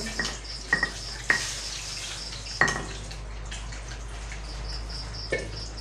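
Pestle knocking in a mortar as papaya salad is pounded and mixed: about five sharp knocks with a short ring, spaced unevenly.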